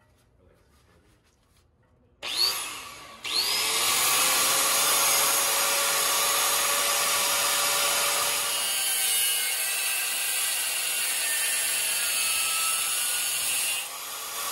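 Angle grinder with a cutoff disc, spun up about two seconds in with a rising whine, stopped for a moment, then started again and cutting through steel on a van's underbody with a steady, loud grinding. It gets quieter near the end as the cut eases off.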